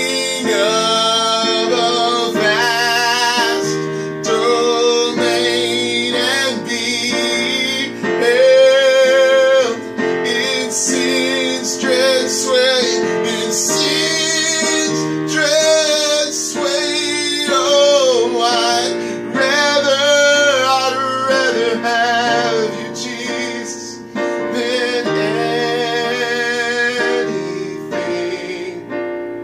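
A man singing a slow song in a high voice with wide vibrato, accompanying himself on a digital piano with sustained chords.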